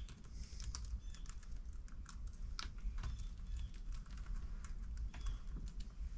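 Computer keyboard typing: a run of irregular, quick keystroke clicks.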